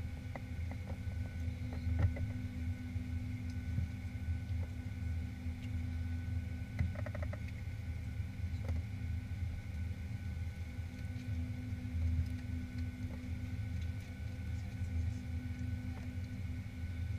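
Steady low hum inside a Boeing 737-800's cabin at the gate, with several steady whining tones over it. A few light clicks and knocks, and a short quick rattle of ticks about seven seconds in.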